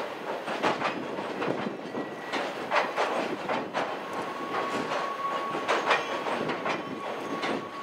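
Railway tank wagons of a cement freight train rolling across a steel girder bridge, their wheels clacking irregularly over the rail joints. A thin steady tone joins about halfway through. Wind noise on the microphone lies under it all.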